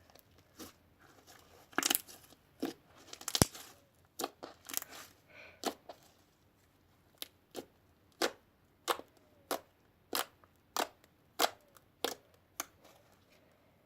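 Slime being squeezed and pressed by hand, giving short crackling pops. They come irregularly at first, then fall into a steady rhythm of about three pops every two seconds.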